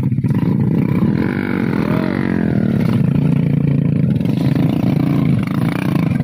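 Small motorcycle engine labouring and revving up and down as it carries a load of oil palm seedlings over rough, muddy ground.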